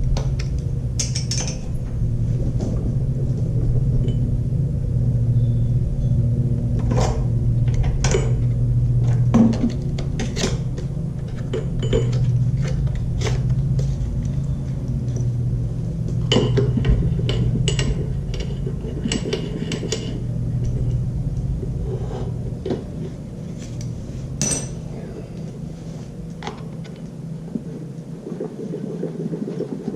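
Scattered metallic clicks, clinks and taps of hand tools and parts as a lawnmower ignition coil is fitted and bolted down against the flywheel, over a steady low hum that fades near the end.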